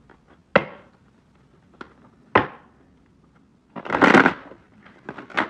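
Tarot deck being handled: two sharp knocks about two seconds apart, then a riffle shuffle about four seconds in, with the cards riffling together in a brief rush, followed by a few light clicks as the deck is squared.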